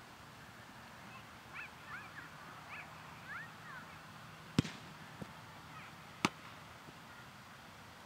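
Two sharp thuds of a soccer ball, about a second and a half apart: a shot struck hard, then caught in the goalkeeper's gloves. Birds chirp faintly in the first half.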